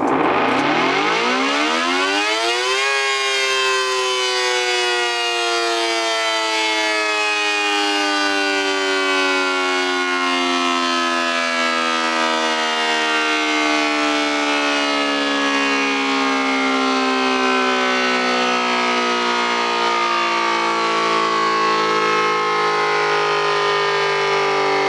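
Federal SD-10 air raid siren, driven by a three-phase electric motor, winding up with a steeply rising wail that peaks about three seconds in. Its power is then cut and it winds down, the pitch falling slowly and steadily. The motor runs up to speed and coasts down normally, showing it is in working order.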